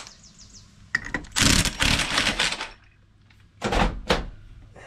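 Cordless impact wrench hammering a nut tight on a Honda Dio scooter's CVT pulley, in one burst of a little over a second. Two short knocks follow near the end.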